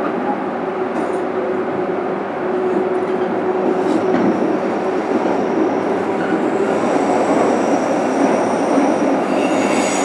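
Running noise inside a JR Kyushu 103 series electric car, MoHa 102-1514: a steady rumble of wheels on rail that grows louder a couple of seconds in. Thin high squealing tones join from about seven seconds in.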